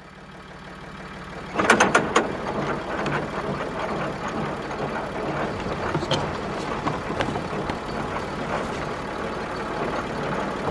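A vehicle engine running steadily, fading in over the first second and a half, with a few sharp knocks about two seconds in.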